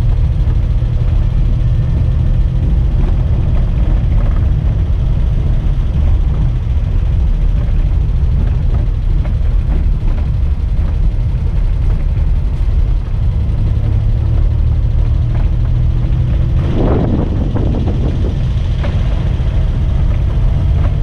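Inside-the-cab sound of a 1984 Daihatsu Hijet 1000 on the move: its three-cylinder engine running steadily under a constant low road rumble. A brief louder burst of noise comes late on.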